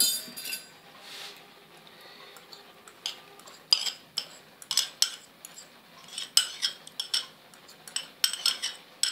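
Metal spoon scraping curd out of a small container into a glass bowl, clinking against the container and bowl rim in a run of irregular sharp clicks from about three seconds in, after a short clatter at the very start.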